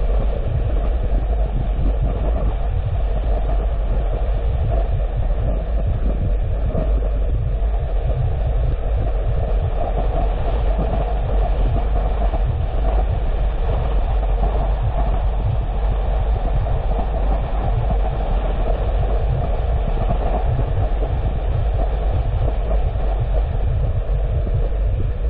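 Steady road noise of a car driving: a low rumble with tyre and engine noise, unbroken throughout.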